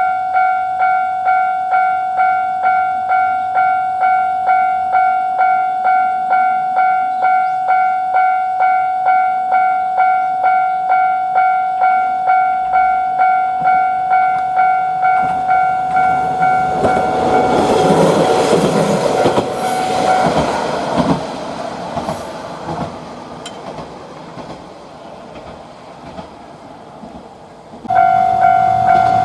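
Japanese level-crossing electronic warning bell ringing in a steady "kan-kan" about twice a second. From about 16 s in, a passing train's noise and rail clatter swell up. The bell stops at about 20 s and the train noise fades away. Near the end the bell starts ringing again abruptly.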